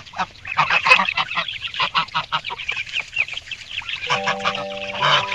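A flock of geese calling, a dense run of short honks several times a second. Steady music comes in about four seconds in.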